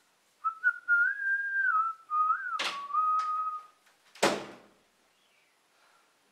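A person whistling a short wavering tune for about three seconds, with a sharp click partway through, then a single heavy knock about four seconds in.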